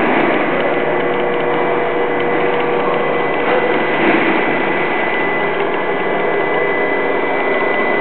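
Detector gondola's hoist mechanism running steadily as the gondola is lowered, a continuous mechanical rattle with a thin steady high whine over it.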